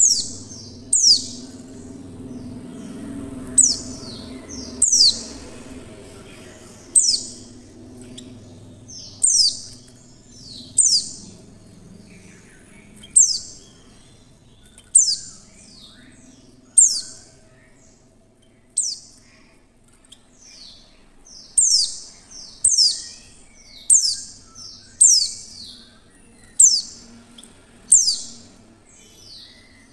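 Female white-eye (pleci) calling: short, high chirps that slide downward, repeated about every one to two seconds, roughly eighteen times. This is the call used to lure male white-eyes into singing.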